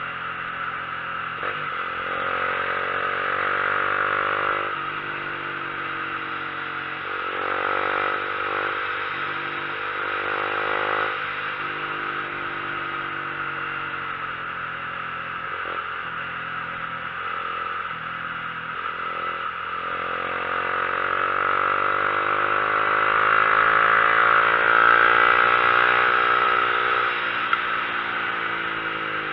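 A vehicle's engine pulling uphill, its pitch rising and dropping back several times as it accelerates and changes gear, over a steady rushing noise.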